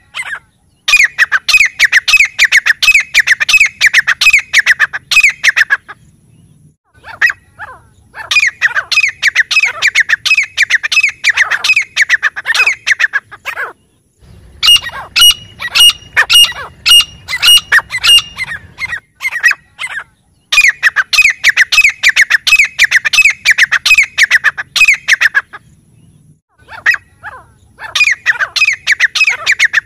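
Grey francolin calling loudly: five bouts of rapidly repeated shrill notes, each bout about five seconds long, with short pauses between.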